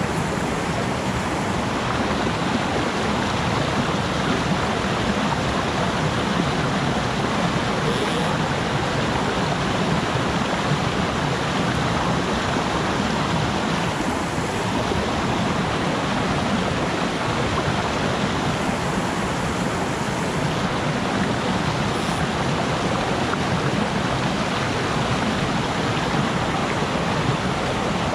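Mountain stream rushing over rocks and small cascades: a steady wash of moving water.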